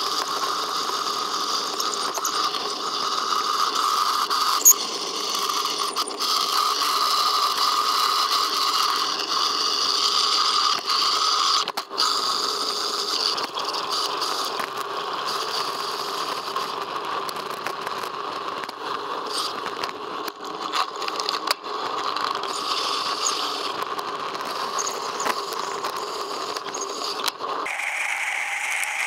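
The bicycle's own riding noise as picked up by a frame-mounted camera, sped up in a timelapse: a steady rattling, mechanical noise from the bike and its knobby tyres on a dirt trail, with scattered clicks. Near the end the sound changes abruptly as the bike rolls onto pavement.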